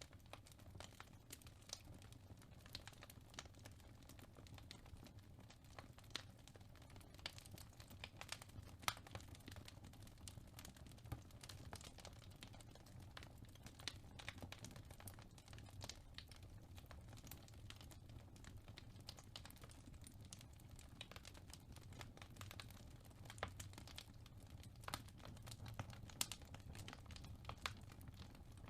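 Faint fireplace crackling: irregular snaps and pops, a few sharper than the rest, over a low steady rumble.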